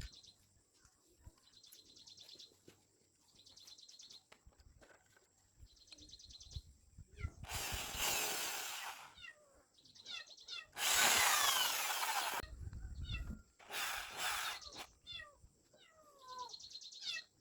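A power tool run in three short bursts, each about one to two seconds long, with birds chirping faintly in the gaps.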